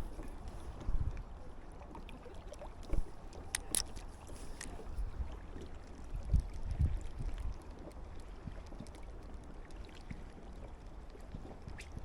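Wind buffeting the microphone in uneven low gusts, with a few faint clicks and small knocks.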